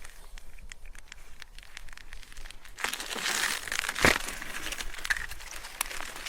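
Mountain bike riding on a trail: light scattered ticking and clicking, then from about three seconds in a louder rough noise of tyres over the ground, with one sharp knock about four seconds in.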